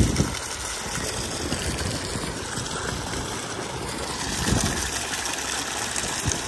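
Steady rush of running water, with a soft low bump about four and a half seconds in.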